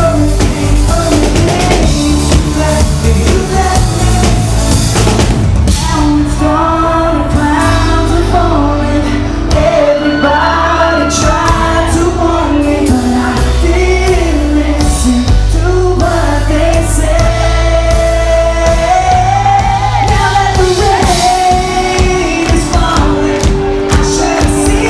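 Live pop-rock band playing a song at full volume: a lead vocal melody over drums and a heavy bass line.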